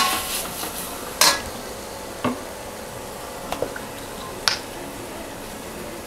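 A perforated steel skimmer ladle clinking and scraping against a stainless steel kadai as vegetables are stirred, about five sharp knocks spread over the first four and a half seconds, over a steady low sizzle of the vegetables frying.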